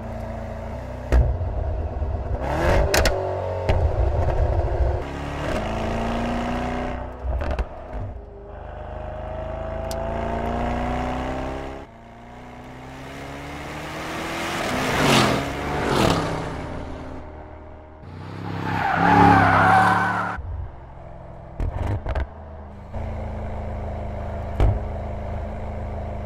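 Mercedes-AMG GT four-door coupé engine and exhaust revving hard, its pitch rising and falling through several accelerations and gearshifts, with the car passing close by, loudest near the middle and again a few seconds later. Sharp exhaust pops and crackles break in here and there.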